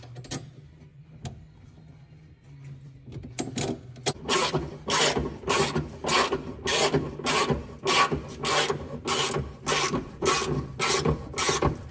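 Hand tool worked in quick, even strokes against metal, about one and a half strokes a second, starting about three seconds in, over a steady low hum.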